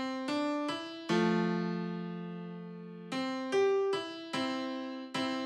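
Background keyboard music: single struck notes that each die away, with a longer held chord from about a second in to about three seconds in.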